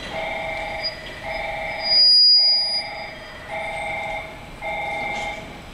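Railway station platform signal: an electronic two-tone beep repeating about once a second. About two seconds in, a short shrill whistle blast, the loudest sound.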